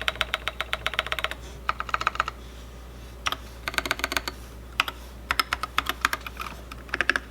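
Typing on a custom KBD8X MKII mechanical keyboard with lubed 68 g Holy Boba tactile switches, a brass plate, a polycarbonate case and SA keycaps. Quick runs of keystrokes are broken by short pauses, with two louder strokes at the end.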